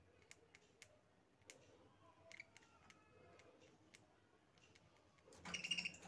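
Budgerigars in a cage: faint scattered clicks of beaks working on seed, with soft chirps, and a short louder call about five and a half seconds in.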